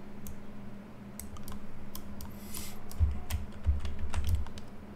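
Computer keyboard typing: scattered key clicks, with a run of heavier low thumps in the second half, over a steady low hum.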